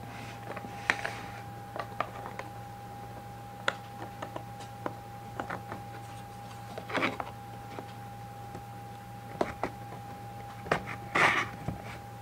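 Hands handling cardboard card boxes: scattered light clicks and taps, with short rustles about seven seconds in and again near the end, the second the loudest. A steady faint high tone and low hum lie under it all.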